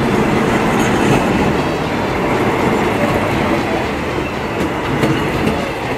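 A passing passenger train's coaches rumbling and clattering over the rails on the adjacent track, blended with the running noise of the moving train it is heard from. The noise is steady and eases slightly toward the end.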